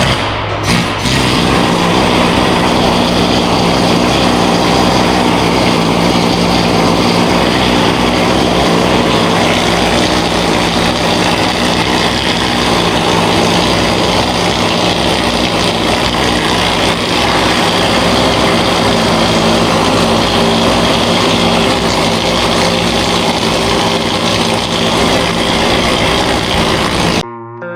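A power tool running steadily and loudly, with a low motor hum under dense grinding-like noise, cut off abruptly near the end.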